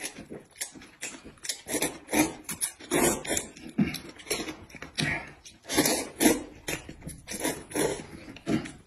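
Two people slurping noodles from soup bowls and chewing, in a quick irregular string of wet slurps.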